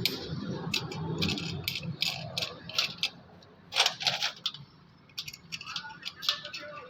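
Irregular metallic clicks and clinks of small steel diesel injection pump parts being handled and fitted, with a sharper clink about four seconds in.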